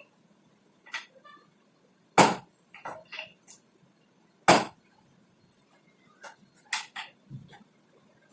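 Chiropractic adjustments: two sharp cracks about two seconds apart, with lighter clicks and taps around them.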